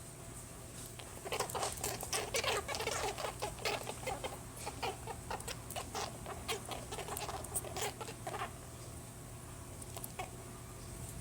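A rabbit making a rapid, irregular run of short sounds, several a second, starting about a second in and dying away after about eight seconds, over a steady low hum.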